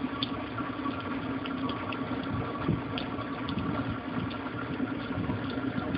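Heating and air-conditioning equipment running: a steady mechanical hum with faint, irregular light ticks over it.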